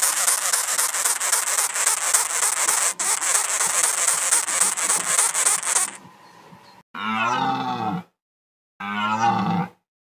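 Sugar gliders crabbing: a loud, harsh buzzing chatter that stops suddenly about six seconds in. Two drawn-out animal calls follow, each about a second long and rising then falling in pitch.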